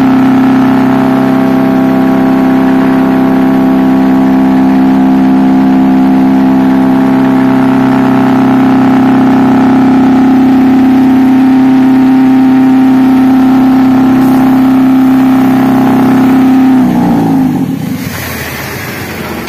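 Machinery on a tractor-drawn water tank rig running steadily with a strong hum, then winding down with falling pitch about 17 seconds in as it is switched off.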